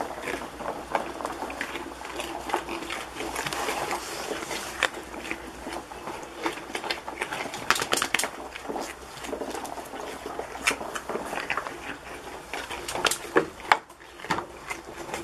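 Goats feeding from a rubber feed pan in straw: irregular crunching and chewing with rustling straw and scattered clicks and knocks.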